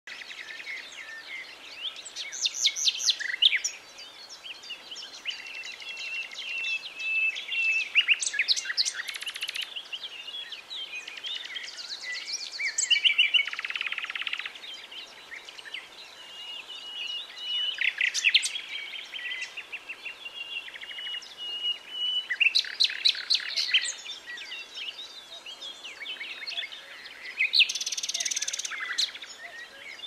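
Common nightingale singing: a string of varied phrases made of rapid repeated notes, trills and whistles, separated by short pauses.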